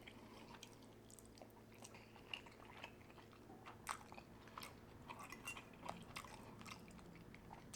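Faint close-up chewing: soft wet mouth clicks and smacks of a person eating, scattered irregularly.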